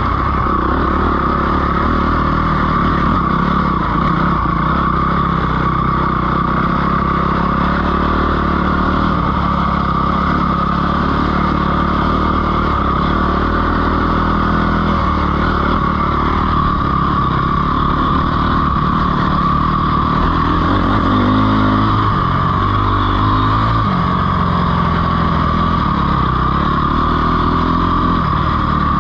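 Dirt bike engine running steadily under way on a trail, its note rising and falling with the throttle, most clearly around twenty seconds in.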